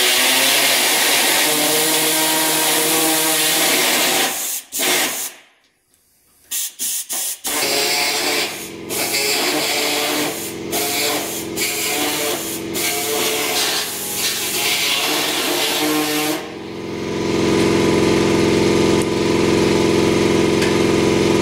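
Pneumatic air saw (reciprocating body saw) cutting through the sheet-metal fender, running steadily at first, then stopping and cutting again in short spurts with pauses. About three-quarters of the way through, a steadier, lower machine running sound starts and continues.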